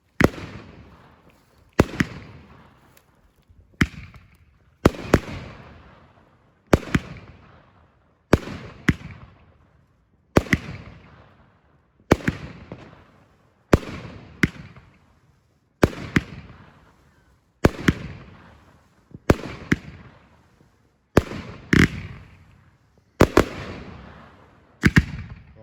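Fireworks going off one after another, a sharp bang roughly every two seconds, several of them doubled, each trailing off in a fading rumble and crackle.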